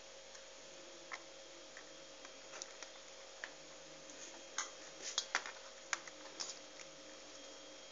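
Faint, scattered light clicks and rustles of hands handling cabbage leaves in a metal pan, busiest about five seconds in, over a steady hum.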